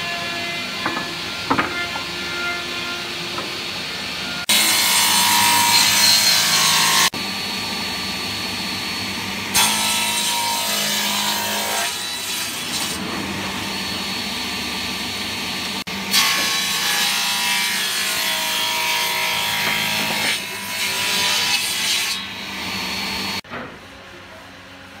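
Sliding table saw running steadily, with several loud stretches of a few seconds each as the circular blade cuts through a wooden panel. Each stretch starts and stops abruptly. Near the end the sound drops to a quieter machine hum.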